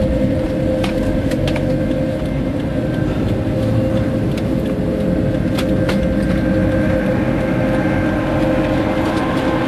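Toyota Prius driving along a road, heard from inside the cabin: a steady rumble of road and tyre noise with a constant hum and a few light clicks.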